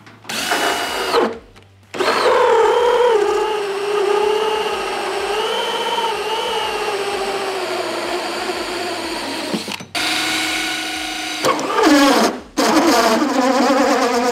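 Cordless DeWalt right-angle drill turning a 3-inch hole saw into a plastic fuel tank, its motor whining and wavering in pitch as the teeth bite. A short burst comes first, then a long run of about eight seconds, with brief stops about ten and twelve and a half seconds in before it starts again.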